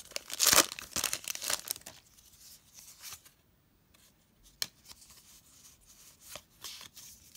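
The foil wrapper of a Pokémon Cosmic Eclipse booster pack tearing open and crinkling for about the first two seconds. Then quieter rustling and sliding as the cards are pulled out and handled, with one sharp tick about halfway through.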